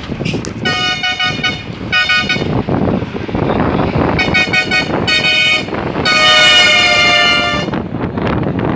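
A vehicle horn honking in four short blasts, then one long blast of about a second and a half, over the steady rumble of a vehicle driving on a mountain road.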